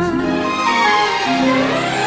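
Background music: an instrumental passage of a Hindi film song between sung lines, with held notes and a rising sweep in the second half.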